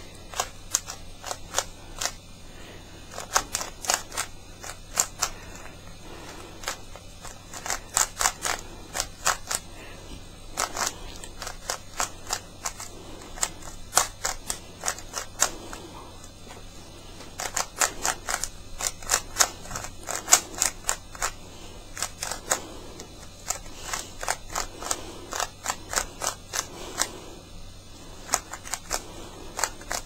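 Plastic 3×3 Rubik's cube being turned fast in the hands: rapid, irregular clicking and clacking of its layers snapping round, in quick runs with short pauses between them.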